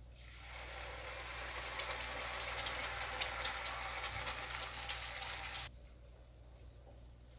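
Onion-and-cashew paste sizzling as it is poured into hot ghee in a frying pan, a steady hiss with fine crackling. The sizzle builds over the first second and cuts off suddenly after about five and a half seconds.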